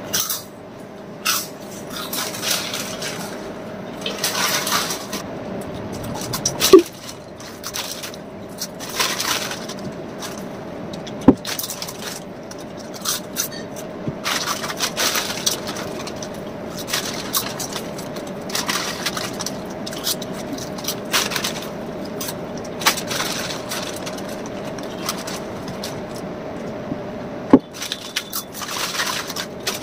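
Crisp potato chips crunching as two people eat, with foil chip packets crinkling and being torn open by hand. A few sharp knocks stand out, the loudest about seven seconds in, over a faint steady hum.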